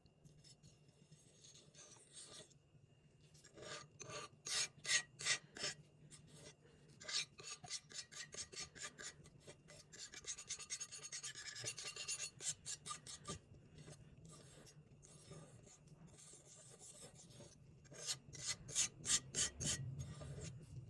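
A paint tool scraping and rubbing through thick acrylic paint in quick repeated strokes, about three a second, in several runs with quieter pauses between.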